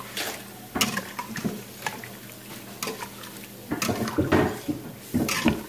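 Metal spoon stirring a thin, liquid curry in a stainless steel Instant Pot inner pot: irregular clinks and scrapes of metal on the pot wall with the broth sloshing, busiest about four seconds in.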